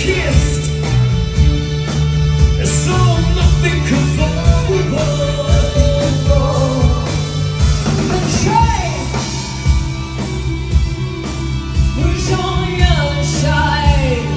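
Rock band playing a song with a lead vocal singing over a steady bass line.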